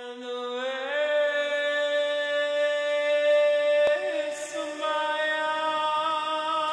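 Background music: a slow ambient, chant-like piece of long held notes, whose chord shifts about two-thirds of the way through, with one faint click just before the middle.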